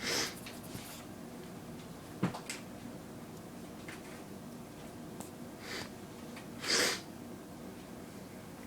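Two short, sharp exhales through the nose, one at the start and one near the end, with a fainter one just before the second, and a single click between them.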